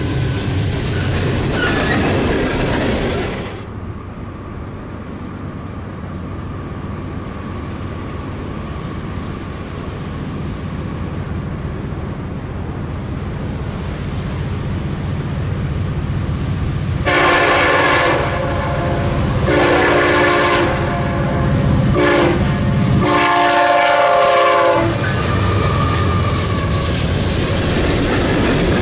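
A freight train approaching with a steady, building diesel rumble. Its locomotive air horn sounds the grade-crossing signal: long, long, short, long. Then the coal hopper cars roll past with wheels clicking over the rail joints. The first few seconds hold another loud stretch of train noise, cut off abruptly.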